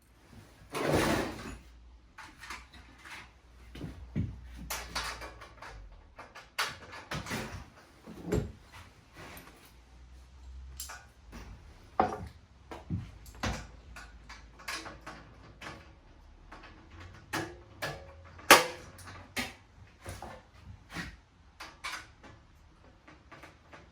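Irregular knocks, clicks and scrapes of dust extractor parts being handled and fitted together during assembly, with a longer scraping sound about a second in and the sharpest knock about three-quarters of the way through.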